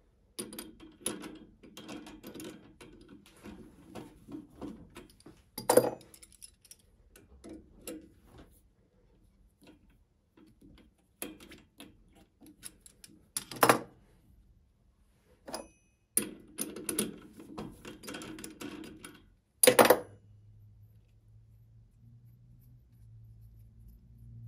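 Small steel parts and hand tools worked at a lathe's collet chuck: runs of metal clicks and clinks, with three louder sharp metallic knocks spread through, as an indicator holder is gripped with pliers and unthreaded from its ball, which is held in the collet. In the last few seconds there is only a faint low hum.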